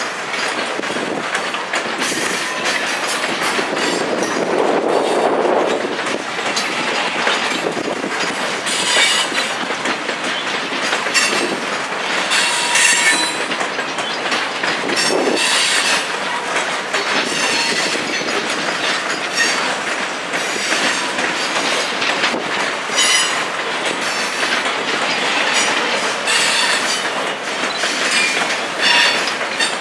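Canadian Pacific grain train's covered hopper cars rolling past, wheels clacking steadily over the rail joints. Brief high-pitched wheel squeals come several times.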